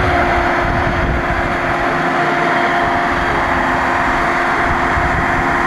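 Truck engine running steadily, a constant hum with no change in speed, over a low rumble.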